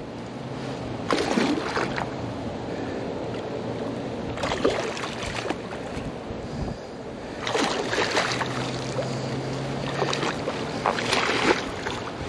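A hooked American alligator thrashing at the surface near the bank, sending up bursts of splashing four times, each about a second long.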